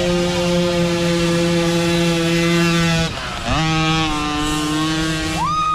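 Micro dirt bike engine held at high, steady revs, heard from on board; about three seconds in the revs drop sharply as the throttle is chopped, then pick back up. Near the end a higher tone rises in.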